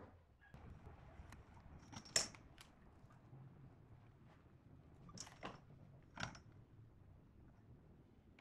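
A few light clicks and taps as a tape measure, pencil and steel ruler are handled on a bark-edged wooden slab. The loudest comes about two seconds in, with a brief high metallic ring, and more follow around five and six seconds in.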